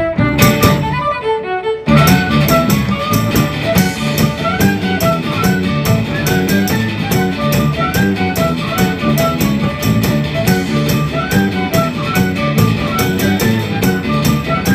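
Irish folk band playing a polka: a fiddle carries the tune alone at first, and about two seconds in the rest of the band comes in with a steady, quick percussive beat.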